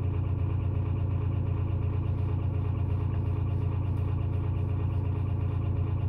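A steady, low mechanical hum.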